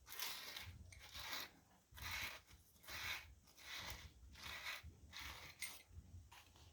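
Repeated hand scraping strokes, roughly one a second, as a tool works at the corroded joint where an old screwdriver's metal shaft enters its wooden handle.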